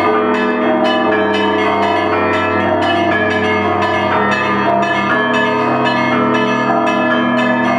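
Russian Orthodox monastery bells rung together. Small bells are struck in a fast, dense pattern, several strikes a second, over the long, steady hum of the large bells.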